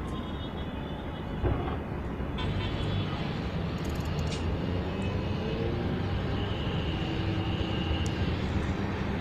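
Steady rumble of city traffic, with a single thump about one and a half seconds in.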